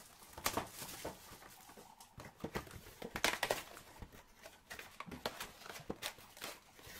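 Trading card packs and cards being handled: irregular crinkles, taps and clicks of wrappers and card stock, loudest a little after three seconds in.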